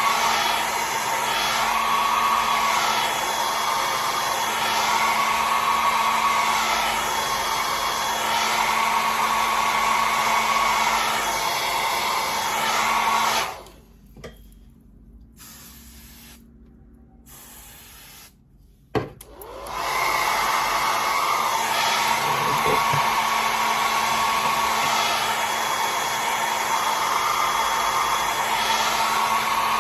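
Handheld hair dryer blowing steadily with a constant hum. It is switched off about halfway through, and after a click it starts running again a few seconds later.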